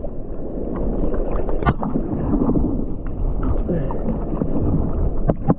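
Sea water sloshing and lapping around a camera held at the surface, with a few sudden splashes as a hand moves in the water.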